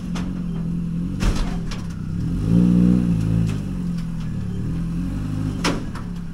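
A vehicle engine running steadily, revving up and back down once about two and a half seconds in. There is a sharp clank about a second in and another near the end.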